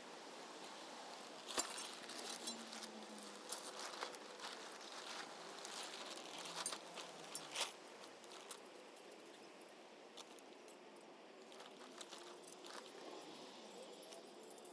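A run of light clicks and rattles, sharpest about a second and a half in and scattered over the next several seconds, then fading to faint background with only a few weak ticks.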